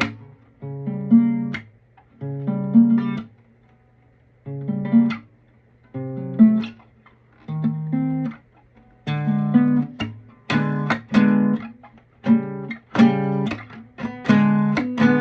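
Classical guitar playing the 'mystery chord' again and again, each chord strummed and left to ring briefly before it is stopped. After a pause about four seconds in, the chords come quicker toward the end.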